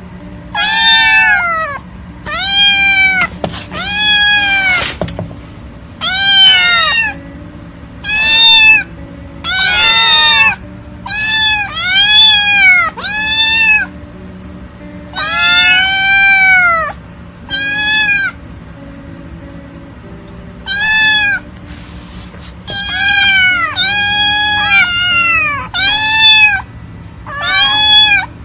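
Young kittens meowing over and over, about twenty high-pitched meows that each rise and fall in pitch, with short pauses between them.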